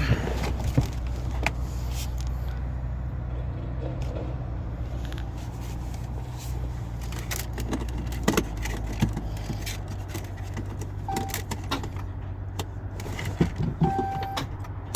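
Keys jangling and scattered clicks of handling inside the truck cab, over a steady low hum, with short electronic beeps about two-thirds of the way in and near the end. No engine runs.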